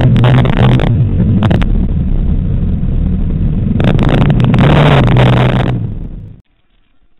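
Onboard sound of an off-road motorcycle engine running steadily along a dirt track, with wind buffeting the microphone and bumps knocking through it. It fades and drops away to a faint level about six seconds in.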